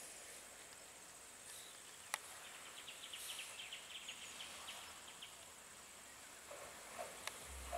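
Faint outdoor background hiss, with one sharp click about two seconds in and a brief run of quick, high chirping ticks in the middle.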